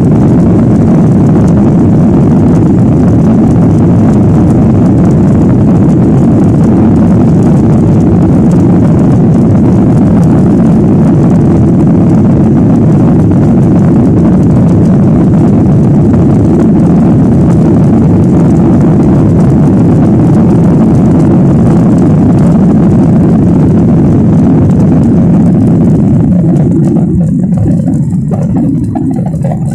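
Airliner jet engines running at high thrust during takeoff: a loud, steady rumble that eases and grows duller near the end.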